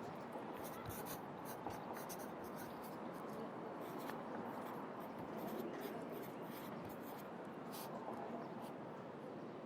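Pencil writing on paper in short, irregular scratchy strokes that stop about eight seconds in, over a steady hum of city traffic ambience.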